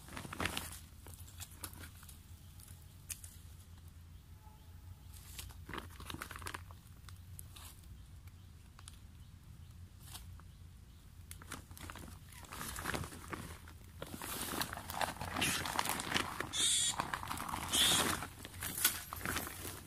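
Plastic bag rustling and crinkling as it is pulled over and wrapped around a small wire cage trap: a few scattered rustles at first, then denser and louder crinkling from about two-thirds of the way through.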